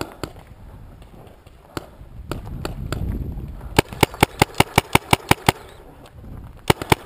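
Paintball marker firing: a few single shots, then a rapid string of about six shots a second lasting nearly two seconds, and a short burst of three near the end.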